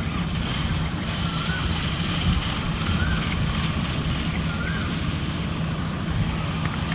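Kubota DC-60 combine harvester running with a steady low engine hum. A short, faint rising squeak repeats about every second and a half.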